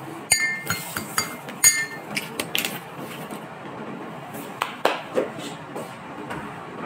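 Metal spoon clinking against a ceramic coffee cup several times in quick succession, each clink with a short ring, over the first two seconds. A few duller knocks follow a little after halfway.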